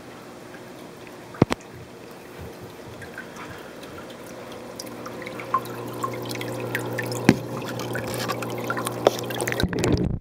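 Aquarium water dripping and trickling, with bubbles popping at the surface over a steady low hum, growing louder and busier as the camera nears the water. A sharp click about a second and a half in. Near the end the sound turns suddenly muffled as the microphone goes under the water.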